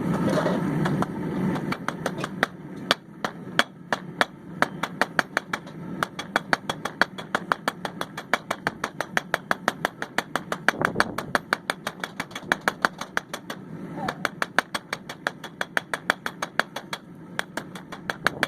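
Blacksmith's hand hammer striking hot steel on an anvil in quick, even blows, about four to five a second, with a couple of brief pauses.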